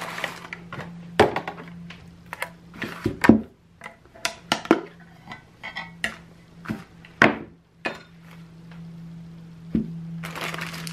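Paint cans and a plastic paint tray being handled on a table: a string of short metallic clinks and knocks as a can is opened and its lid set down, the loudest about three seconds in, over a steady low hum.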